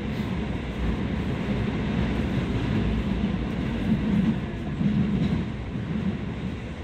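Hokuso Railway 9100 series train running through a subway tunnel, heard from inside the car: a dense, steady rumble of wheels on rails, easing off slightly near the end as the train slows on the approach to a station.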